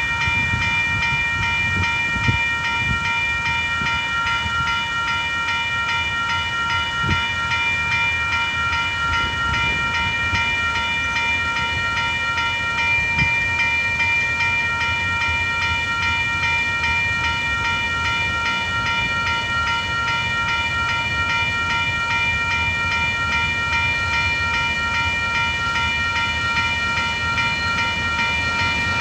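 Railway level-crossing warning bells ringing continuously, a rapid steady ringing over a low rumble. They are sounding while the booms are down and the red lights flash, warning of an approaching freight train.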